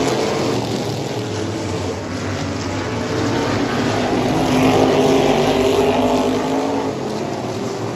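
Race car engines running on a track, their pitch rising and falling and the sound swelling louder about five seconds in.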